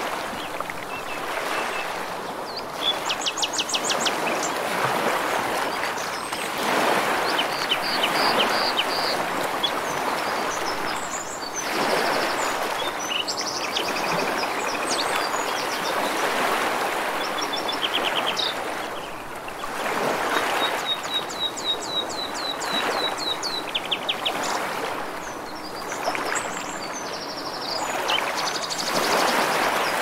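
Ocean waves washing ashore, the rushing swelling and easing every few seconds, with small birds singing over them in quick trills and runs of repeated chirps.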